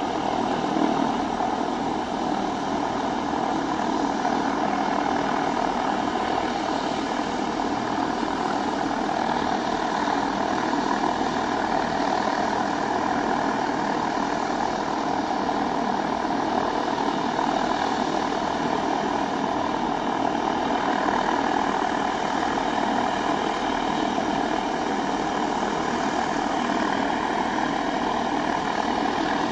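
Antonov An-22's Kuznetsov NK-12MA turboprop engines, with their contra-rotating propellers, running steadily on the ground in a loud, unchanging drone.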